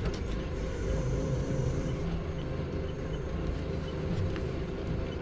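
Doosan forklift engine running steadily, a low even rumble heard from inside the cab.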